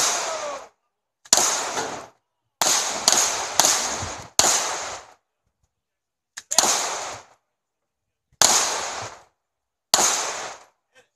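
Pistol shots from several shooters firing at once: about nine sharp reports at uneven intervals, some in quick succession around the middle, each trailing off in about half a second.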